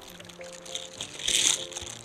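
Background music with slow, held notes. About a second and a half in, a short hissing rush of water rises over it.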